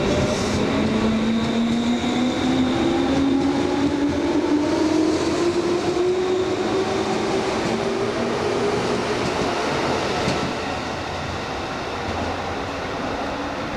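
JR 205-series electric commuter train pulling away, its traction motors whining in a steadily rising pitch as it picks up speed, over the rumble of its wheels on the rails. The sound eases off about ten seconds in as the train draws away.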